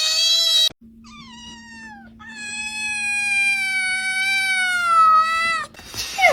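Cat meowing in long, drawn-out calls. One call breaks off just under a second in, a shorter falling meow follows, then a long yowl of about three seconds that slowly sinks in pitch.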